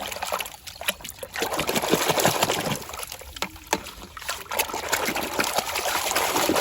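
Water splashing and trickling as a muddy metal toy tank truck is washed by hand, with irregular small clicks and knocks of the toy being handled.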